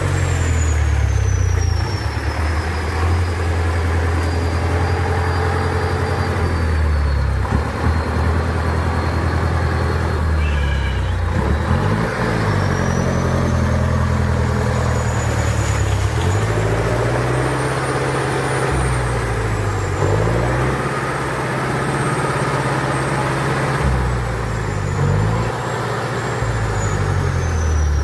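Engine of a ZIL-131 six-wheel-drive army truck labouring under load in deep mud, its revs falling and rising again every few seconds, with a thin high whine drifting in pitch above it.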